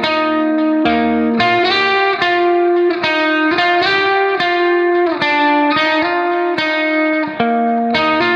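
Background music: a melody of quickly changing notes that runs steadily throughout.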